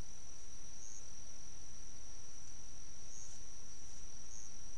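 Night insect chorus of crickets trilling in one continuous high-pitched tone, with a few slight swells.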